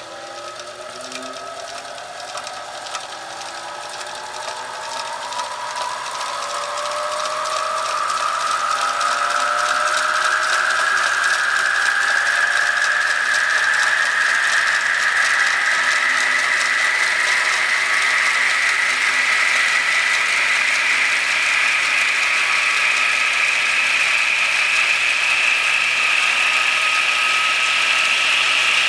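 A modified turntable's brushed motor spins the platter up to very high speed. Its whine rises steadily in pitch the whole time and grows louder over the first ten seconds or so, then holds its loudness while still climbing slowly in pitch.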